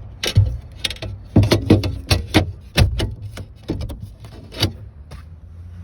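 Irregular knocks and clicks of the sliding rear window's glass and frame being worked into its channel by hand, about a dozen sharp hits that thin out near the end.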